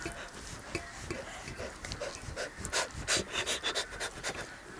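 Fingers mixing rice with sisnu (stinging-nettle) curry on a metal plate: a run of short, wet squelching clicks, busiest in the second half.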